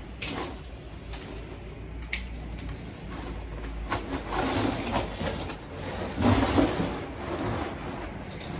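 Artificial Christmas tree branches rustling and scraping as the tree sections are handled and pushed into a cardboard box, with a few sharp knocks and two louder stretches of scraping in the middle and about two-thirds through.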